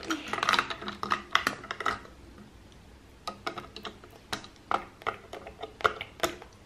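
Plastic Lego pieces and minifigures clicking and tapping against Lego bricks as they are handled: a quick run of clicks in the first two seconds, then scattered single clicks.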